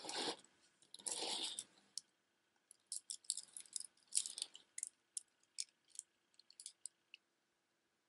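Plastic beads of a multi-strand necklace clicking and rattling against each other as it is handled, after two soft rustles of it being slid and lifted in the first two seconds.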